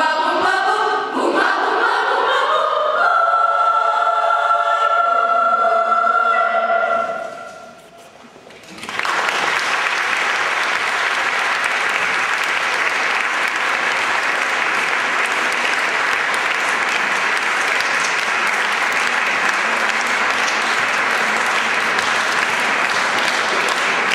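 Children's choir singing the close of a song, ending on a long held chord that dies away about eight seconds in. After a brief pause the audience breaks into steady applause that continues to the end.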